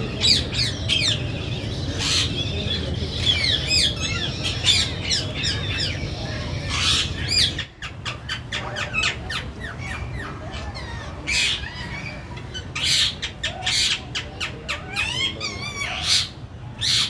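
Many birds chirping and squawking at once in quick, overlapping short calls, over a steady low hum. The calls break off briefly about halfway through, then carry on.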